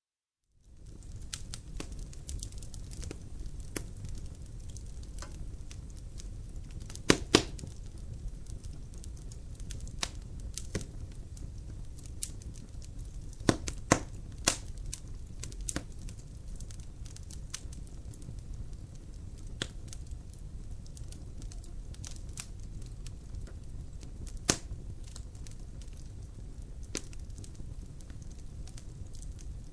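Wood fire crackling in a fireplace, coming in from silence in the first half-second: a steady low rumble of burning with sharp irregular pops, the loudest a close pair about seven seconds in and another about halfway through.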